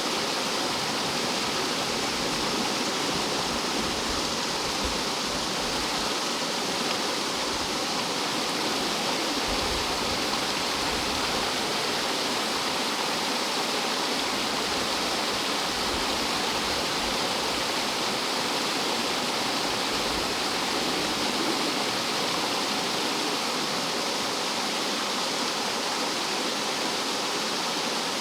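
Rough mountain stream tumbling over rocks like a small waterfall: a steady, unbroken rush of water.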